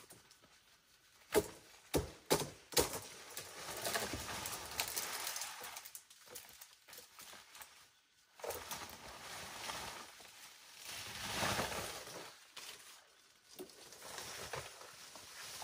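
Leaves and undergrowth rustling as large leaves are cut and handled by hand, with four sharp knocks like blade chops between about one and three seconds in.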